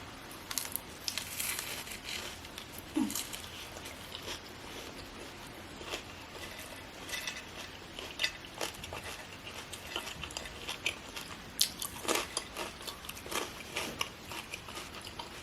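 A person biting and chewing crunchy food close to the microphone: irregular crunching and wet chewing clicks.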